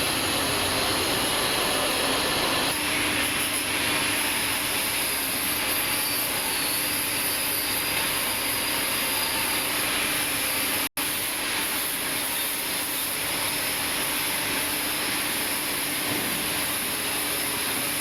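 Steady hiss of an automatic pipe-welding arc, with a faint steady hum underneath. The sound drops out for an instant about eleven seconds in.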